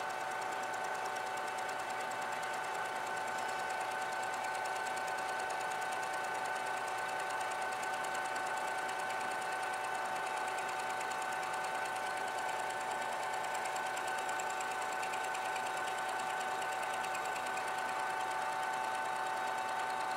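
Lathe running steadily, with a constant whine.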